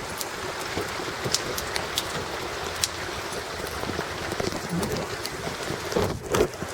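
Steady rain falling, with scattered sharp ticks of single drops striking close by. About six seconds in, a couple of louder thumps and rustles stand out.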